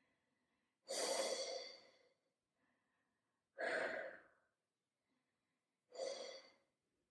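A woman's audible breaths, three long ones about two and a half seconds apart, each starting strongly and fading away: she is catching her breath while resting after a strenuous hold.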